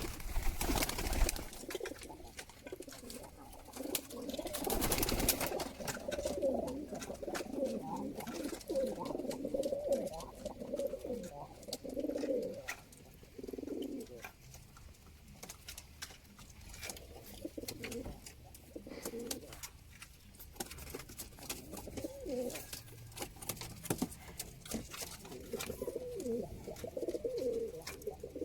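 Domestic pigeons cooing over and over, with scattered clicks and two louder rustling bursts, one in the first second and another about five seconds in.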